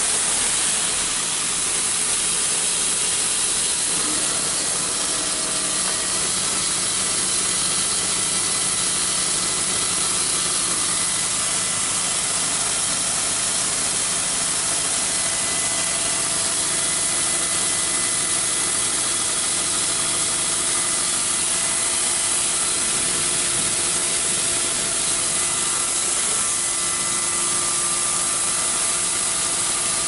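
Shelled corn pouring from a grain truck's hopper door into a grain auger's hopper, a steady dense hiss, with the auger's machinery running underneath.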